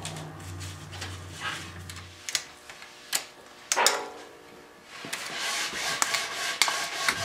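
Strap band clamp being pulled around a chair back and cranked tight with its ratchet to draw glued joints together: scattered sharp clicks, then a quicker run of ratchet clicks with the strap rubbing over the last two seconds.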